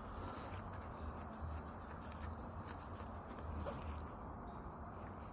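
Insects trilling steadily in a constant high-pitched tone, over a low pulsing hum and a few faint clicks.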